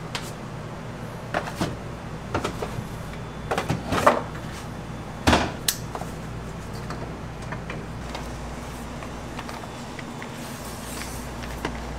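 Cardboard gift boxes being set down and stacked on a table: a run of knocks and taps through the first six seconds, then quieter handling.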